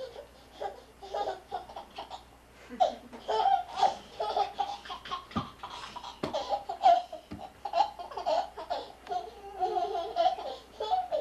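Small children laughing and making playful voice sounds on and off, with a few sharp knocks in the middle.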